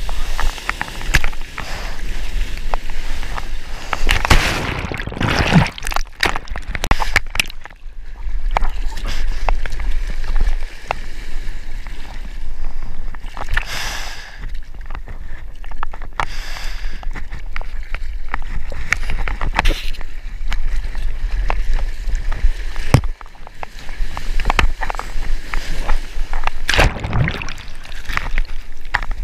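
Surf whitewater rushing and sloshing right against a mouth-mounted action camera, with many sharp splashes and knocks over a steady low rumble of moving water.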